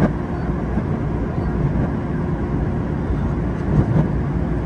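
Running noise of a Yokohama Municipal Subway 3000R train heard from the cab, played in reverse: a steady rumble of wheels on rail, with a sharp click right at the start and a couple of knocks about four seconds in.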